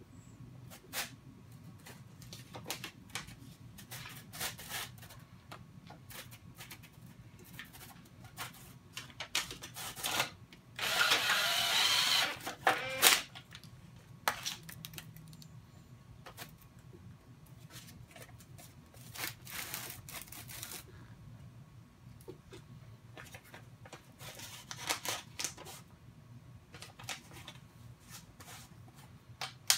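Makita 18V cordless drill running in one burst of about a second and a half, about eleven seconds in, drilling out a hole in a metal strip to enlarge it. Scattered clicks and knocks of metal parts being handled on a steel table come before and after.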